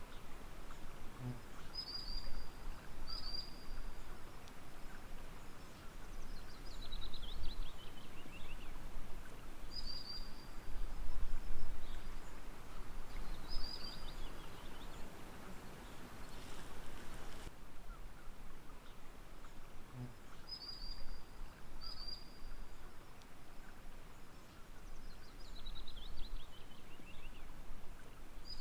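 Songbirds calling over a steady wash of water noise: short, high whistled notes come every few seconds, and twice a longer trill slides down in pitch.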